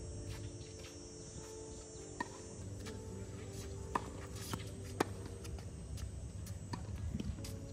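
A handful of sharp, isolated taps on a hard tennis court, the loudest about four and five seconds in, over a steady background hum and a faint high insect buzz.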